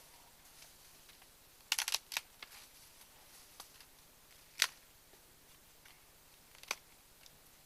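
A few sharp clicks or snaps over faint outdoor background: a quick cluster about two seconds in, a louder single snap in the middle, and another near the end.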